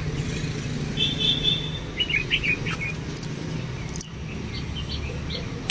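Small birds chirping: a short whistled note about a second in, then a quick run of chirps, with more short chirps near the end, over a steady low hum.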